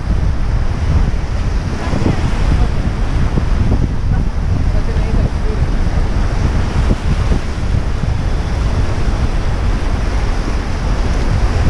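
Whitewater river rapids rushing and churning around an inflatable raft, with wind buffeting the microphone.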